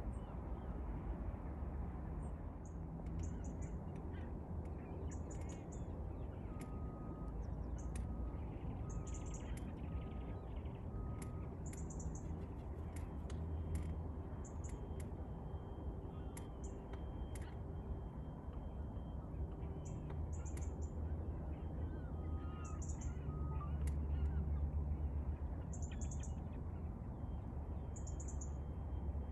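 Birds calling over a steady low rumble, with small high chirps every second or two and a short run of five evenly spaced pips about a quarter of the way in; the rumble swells briefly near the end.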